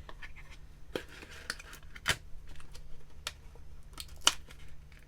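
Scattered light clicks and taps from handling paper and small craft tools, with a few sharper clicks standing out.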